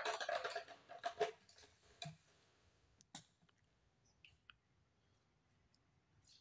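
Rapid plastic clicking and rattling for about the first second and a half, then two single clicks, as the fuel cap and a plastic bottle of octane are handled at a small four-stroke engine's fuel tank. The rest is near silence with a few faint ticks while the petrol is poured into the tank.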